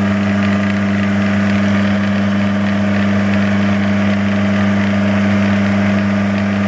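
Clarke CL430 metal lathe running at its medium speed of about 500 rpm, its motor and drive giving a steady, loud hum, as the dovetail cutter is fed slowly toward the mild steel block before it catches and begins to cut.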